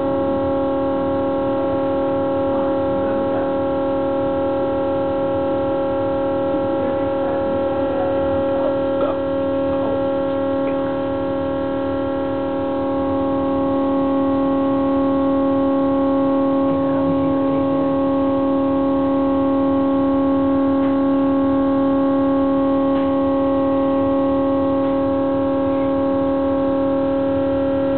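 LG refrigerator giving off a really loud, steady droning tone made of several pitches together, like an air raid siren held on one note; about halfway through its lower tone strengthens and it gets a little louder. It is an abnormal noise that the owner blames on a design fault.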